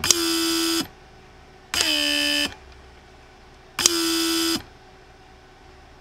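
A rebuilt four-vane central-locking pump from a 1992 Mercedes 500SEL (W140) runs three times, each time for under a second, with a buzzing hum that dips in pitch as it starts and then holds steady. It is building pressure and vacuum alternately for lock and unlock, and the pressures are within specification.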